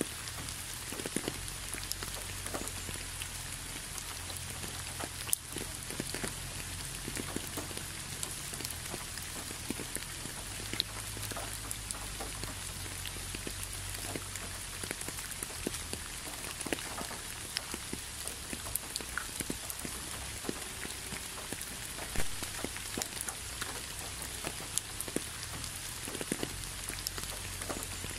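Steady rain falling, with many individual drops heard as small clicks over an even hiss and a low steady rumble.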